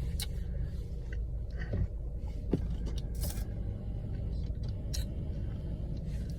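Steady low rumble, with a few faint short clicks or rustles over it.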